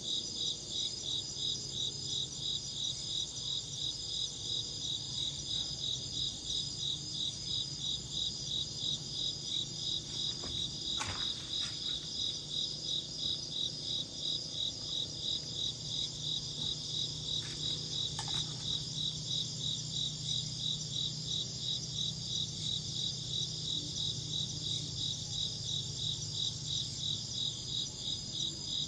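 Crickets chirping in a steady, even rhythm, about two to three high chirps a second.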